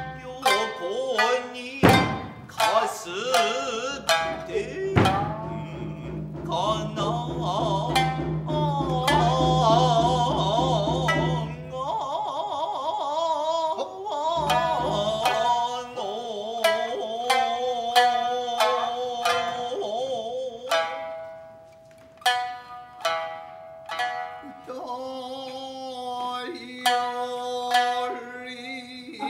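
Traditional Japanese dance music: a singer's long, wavering notes over sharp plucked shamisen strokes.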